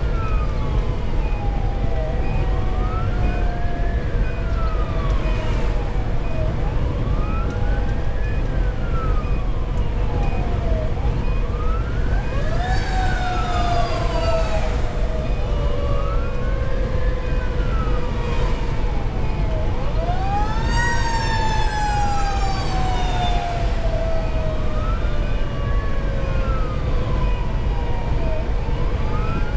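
Fire engine siren heard from inside the cab on a slow wail, rising and falling about every four seconds. A second, lower siren tone climbs twice and slowly winds down each time. Under the sirens is a steady low rumble from the truck's Detroit Series 60 diesel and the road.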